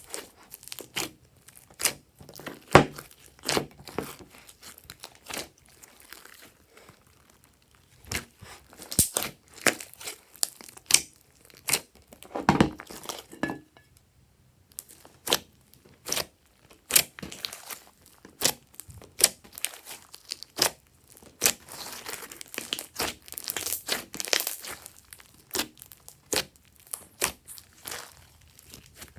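Glossy slime being kneaded and stretched by hand, making irregular sticky clicks, pops and crackles, with a couple of short pauses.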